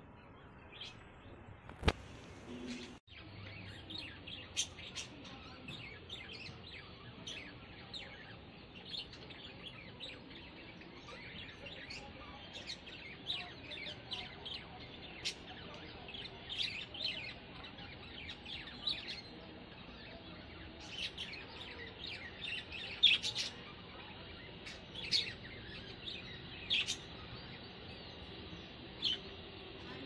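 Small birds chirping: many short, high chirps scattered irregularly, busier and louder in the second half. A single sharp click sounds about two seconds in.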